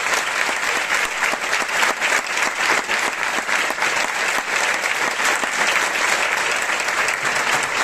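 Sustained applause from a concert hall crowd, with the wind band's musicians and the presenter on stage clapping too: a dense, steady patter of many hands.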